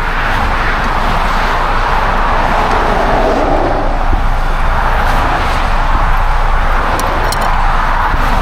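Steady rush of road traffic going by, with a few faint clicks about seven seconds in.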